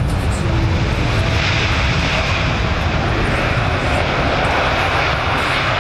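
Jet engines of a large four-engine Airbus airliner flying past: a steady, loud jet rumble with a hiss that grows stronger about a second and a half in.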